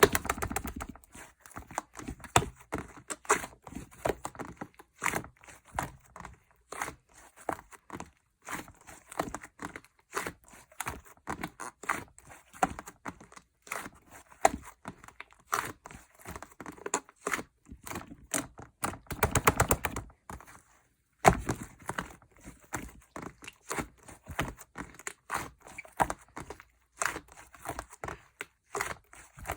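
Slime being squished and worked by hand, making many small sticky pops and clicks at an irregular pace, with a brief pause about two-thirds through.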